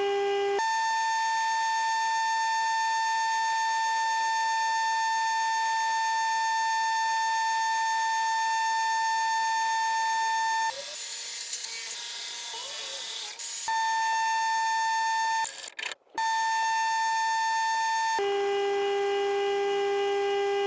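A steady buzzing electronic tone with overtones that switches abruptly between a low and a higher pitch: low at the start and again near the end, higher in between. About halfway through it gives way for a few seconds to a hiss, and it cuts out briefly once.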